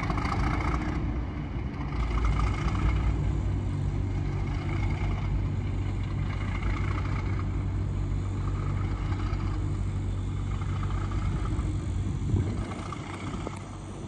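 Class 37 diesel locomotive's English Electric V12 engine running with a steady low drone, fading away near the end.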